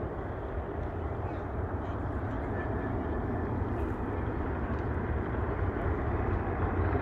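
Four turbofan engines of an RAAF C-17 Globemaster III running as the aircraft approaches head-on at low level, a steady jet rumble growing gradually louder as it nears.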